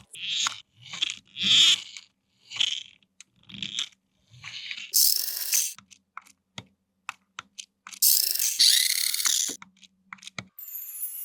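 Plastic RC toy being handled: crinkling and clicking of plastic parts, then a small electric gear motor running in short spells, whirring with a steady hum and gear clicks. Music starts near the end.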